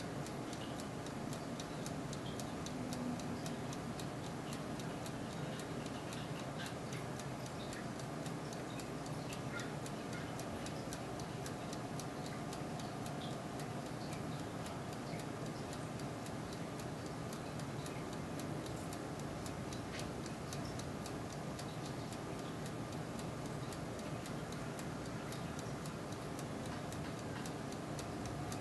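Turbo convection oven running while it cooks pork chops: a steady fan whir with a stream of small ticks and crackles over it.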